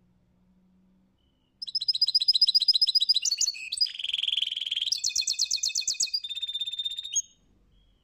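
European goldfinch singing: a burst of rapid high trills and twittering notes with a buzzy stretch in the middle, starting about a second and a half in and stopping abruptly near the end.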